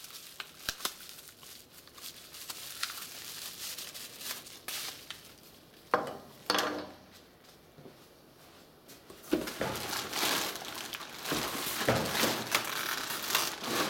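Plastic packaging crinkling and rustling with scattered small clicks as a new side marker light is unwrapped. A couple of sharp knocks about six seconds in as the plastic marker is set down on a table. From about nine seconds, louder, denser rustling of plastic wrap and cardboard as a wrapped grille is handled in its long cardboard box.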